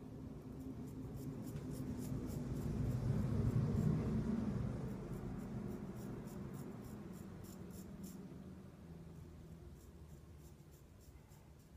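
Custom straight razor scraping through lathered stubble around the mouth and cheek, a run of short rasping strokes. Under it, a low rushing sound swells to a peak about four seconds in and then fades.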